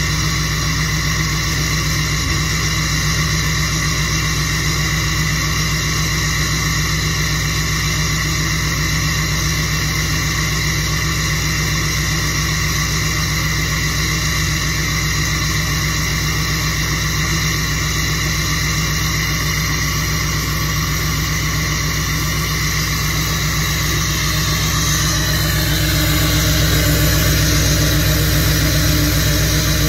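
LML Duramax 6.6-litre turbo-diesel V8 with its emissions equipment deleted, idling steadily about a minute and a half after a cold start at 34 below. It gets louder about 26 seconds in, when heard right at the tailpipe.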